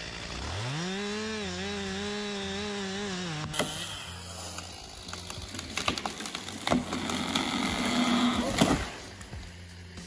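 Stihl chainsaw revving up from idle to full throttle and holding steady with its bar in the felling cut, cut off abruptly a few seconds in. It is followed by a stretch of irregular sharp wood cracks and snaps that grows louder toward the end.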